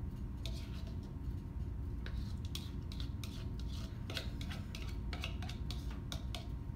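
A small measuring spoon scraping and clicking against the inside of a plastic mixing bowl as egg mixture is scooped out. It makes an irregular series of short scrapes and taps over a steady low room hum.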